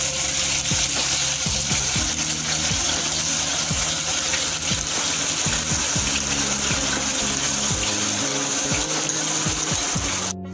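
Onion paste frying in hot refined oil in a pan, a loud, steady sizzle that cuts off abruptly near the end.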